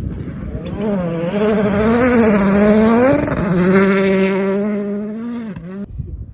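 Hyundai i20 WRC rally car's turbocharged four-cylinder engine at full throttle going past, its note wavering up and down with gear changes and loudest in the middle. Near the end the pitch drops sharply and the sound falls away.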